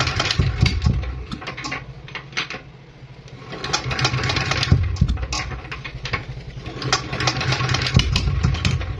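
Single-cylinder R170A water-cooled diesel engine turned over and firing unevenly as it tries to start, fading about two to three seconds in and then picking up again. The uneven firing is the misfire being shown, an engine that also puffs white smoke.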